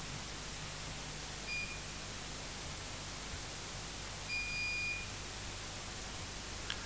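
Electronic voting system beeping during a council vote: a short beep about a second and a half in, then a longer, higher-level beep of under a second as the tallies come up on the board. A faint click comes just before the end, over steady hiss and low hum.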